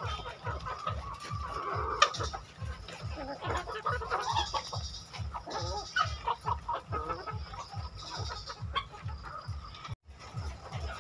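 Caged Lohmann layer hens clucking and squawking, many short calls overlapping, over a steady low rapid thudding at about three to four beats a second. The sound breaks off for a moment near the end.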